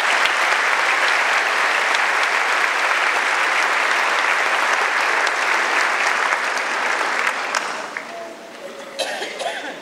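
Audience in a large hall applauding, dying away about eight seconds in.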